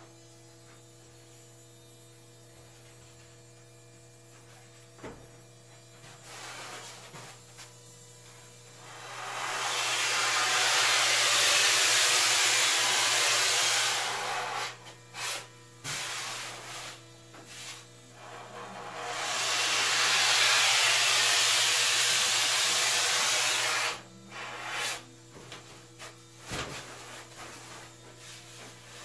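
Compressed-air blow gun hissing in two long blasts of about five seconds each, with shorter spurts in between, over a steady low electrical hum. The air is blowing foam dust off a surfboard blank.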